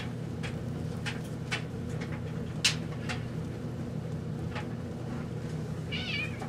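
A spoon clicking and scraping against a mixing bowl and baking tray as cookie dough is dropped onto the tray, over a steady low hum. Near the end a domestic cat gives a short, high, wavering meow.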